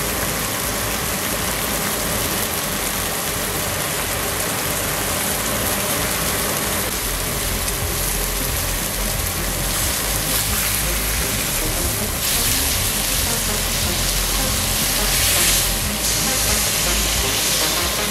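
Flour-dredged minute steaks sizzling steadily in hot oil in a cast-iron skillet.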